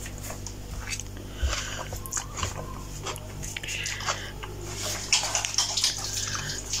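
A person eating noodles off a fork: wet chewing and slurping mouth sounds with many small clicks, over a low steady hum.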